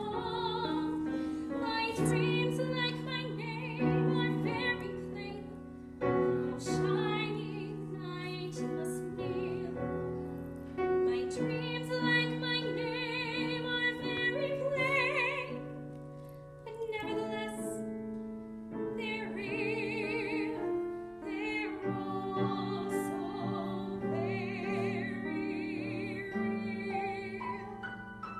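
A woman singing a musical-theatre song in a classical, operatic style, with long held notes and wide vibrato, accompanied by a grand piano.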